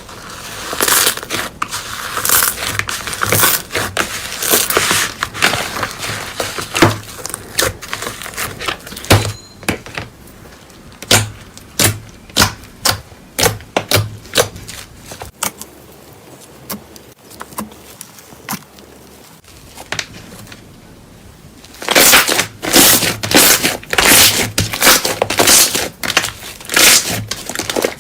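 Hands squeezing and poking slime, making a run of sticky pops, clicks and crackles. The pops come thick and fast at first, thin out to separate clicks through the middle, and come thick again near the end.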